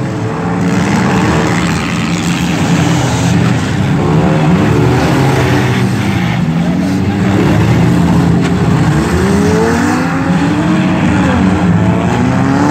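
Several front-wheel-drive demolition derby cars' engines running and revving at once, their pitches rising and falling over one another above a steady, dense din.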